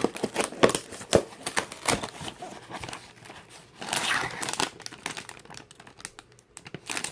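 Lego set packaging being unpacked by hand: plastic crinkling and rustling, with a run of sharp clicks and taps in the first two seconds and a louder rustle about four seconds in.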